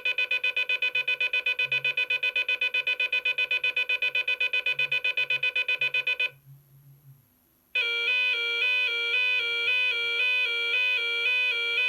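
DA Systems Abacus 6P intruder alarm panel sounding a high, rapid beeping tone, about six or seven beeps a second, that stops about six seconds in. After a second and a half of silence a different alarm tone starts: a repeating pattern of alternating pitches that cycles a little faster than once a second.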